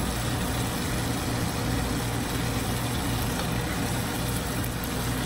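Ground beef and rice cooking in a skillet while being stirred: an even, steady hiss with a low hum underneath.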